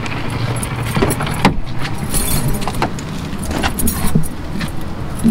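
A pickup truck's rear door being unlatched and swung open, with a string of sharp clicks and rattles as things are handled, over a steady low rumble.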